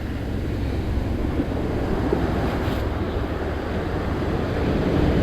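Surf washing onto the beach at a rising tide, mixed with wind rumbling on the microphone; the rush builds slowly toward the end.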